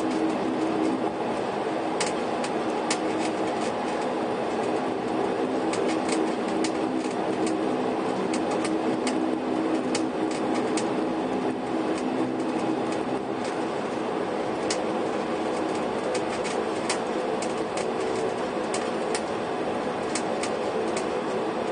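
Steady engine drone heard from inside a moving vehicle, with frequent sharp, irregular clicks and rattles.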